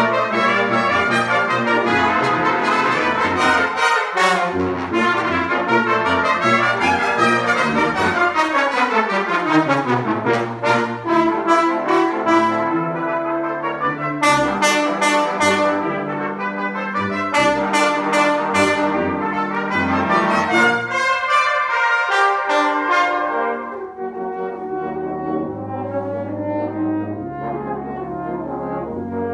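Youth brass ensemble of trumpets, trombones, euphoniums and tubas playing a lively piece together, with a falling run in the middle and a drop to a softer, lower passage about three quarters of the way through.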